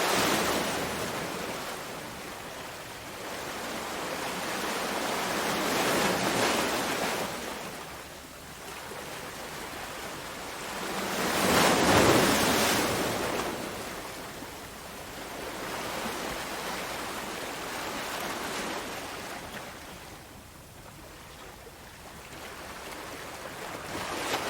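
Ocean waves breaking and washing ashore, the surf swelling and ebbing every five or six seconds, the biggest wave about halfway through.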